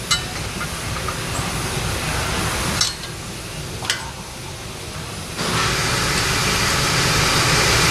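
Steady machine noise in a repair shop with a few light metallic clicks. About five seconds in, a louder, even rushing noise starts and keeps going.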